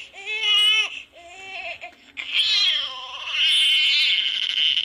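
Recorded infant crying played by a reborn baby doll's built-in sound unit: a few short, high wails, then a longer wavering wail from about halfway through.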